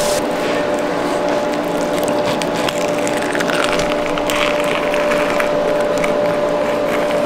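Knife blade slicing and scraping along a raw bluefin tuna loin, with many small clicks, over a steady background hum.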